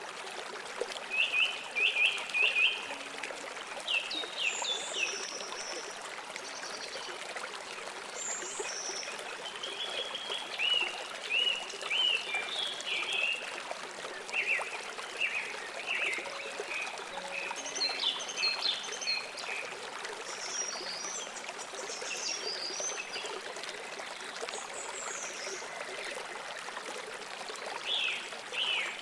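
A river or stream flowing steadily, with many birds chirping and trilling over it throughout.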